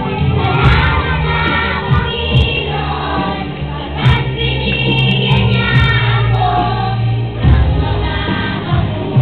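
Group of young children singing a song of thanks to their parents together, over steady instrumental accompaniment.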